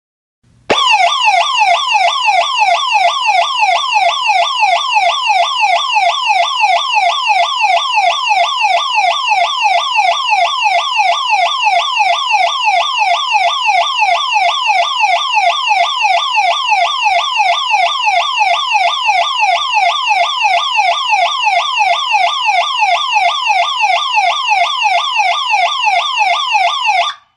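Electronic security-alarm siren sounding loudly, a fast yelp made of a rapid pitch sweep repeated several times a second. It starts abruptly under a second in and cuts off abruptly just before the end.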